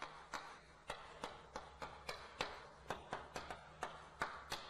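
Chalk writing on a blackboard: a string of sharp, irregular chalk taps and clicks, about three a second, over a faint scratching.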